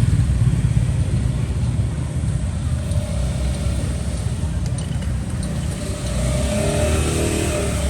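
Steady rumble of road traffic, with an engine tone rising and falling about three seconds in and again near the end.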